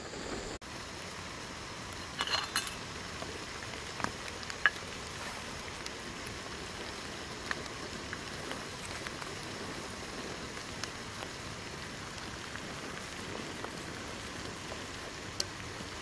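Gas canister camp stove burning under a metal pot of water at the boil: a steady hiss with bubbling, broken by a few light clicks and taps about two and four seconds in.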